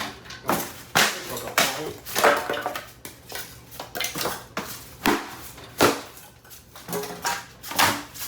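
Hard clattering and knocking at an irregular pace as a boxed computer case and its packing are handled and unpacked.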